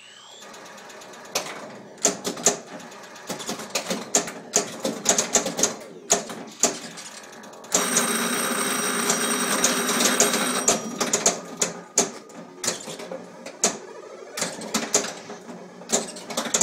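Williams Sorcerer pinball machine in play: a rapid, uneven run of clicks and clacks from the ball, bumpers, flippers and solenoids, mixed with the machine's electronic sound effects. About eight seconds in, a dense three-second burst with steady tones sounds over the clatter.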